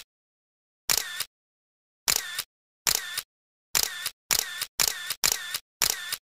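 A sharp two-part click sound effect, identical each time and separated by dead silence, repeated about eight times, coming closer together toward the end.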